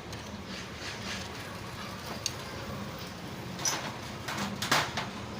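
Hand work on a motorcycle engine: a few short metallic clicks and knocks of tools and parts, more of them and louder in the second half, over a faint steady hum.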